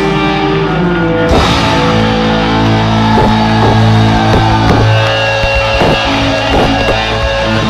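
Live rock band playing loud, with held distorted electric guitar notes. About a second in, a cymbal crash brings in a steady beat of drum hits.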